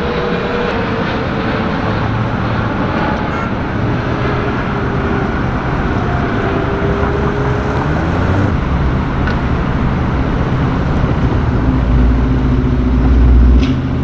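Road traffic on a wide multi-lane boulevard, cars passing steadily with a continuous roar and faint engine hums. A deep low rumble swells near the end.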